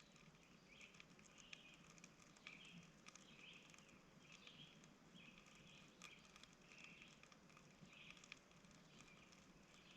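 Near silence: a small campfire burning faintly, with scattered soft crackles and a faint high hiss that comes and goes.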